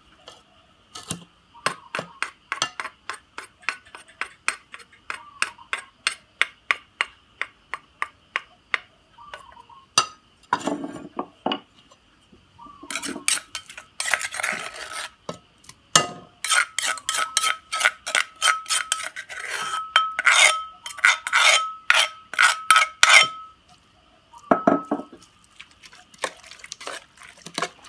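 A metal spoon stirring and scraping in an aluminium pot, clinking against its sides about twice a second as the sliced roasted peka pods are mixed. A little past the middle the clinks come faster and louder, with a ringing metallic tone.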